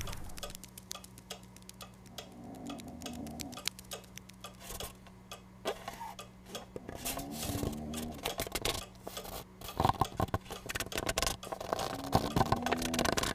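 Cartoon sound effect of an ant's footsteps: a dense run of tiny, light ticks as it scurries along, over a faint steady low hum.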